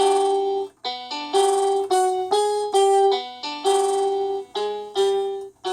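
Big Fun BF-420 toy keyboard playing a run of piano-voice chords, each struck and held about half a second, with short breaks between them. These are first-inversion major chords, which on this keyboard sound an extra phantom note that the owner puts down to a programming glitch.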